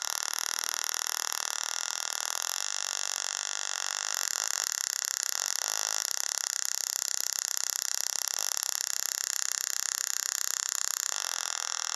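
Small transistor-driven tabletop Tesla coil running, its spark discharge making a steady high-pitched hissing buzz with a fine rapid flutter, as a fingertip draws sparks from the top terminal.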